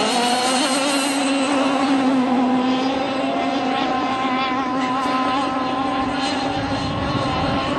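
Radio-controlled model speedboat engines running at high revs, a steady high-pitched whine whose pitch wavers slightly as the boats race across the water.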